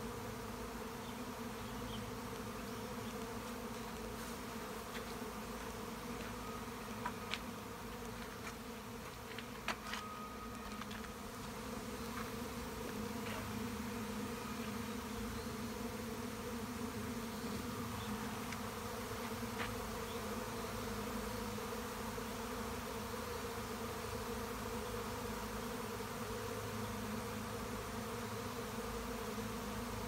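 Honey bee swarm in flight: the steady, dense hum of thousands of bees in the air at once, as the swarm looks for a new home in empty hive boxes.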